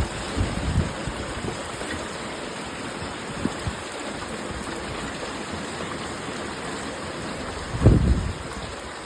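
Torrential rain pouring down in a steady rush, with water running off. A few short low thumps break through, the loudest about eight seconds in.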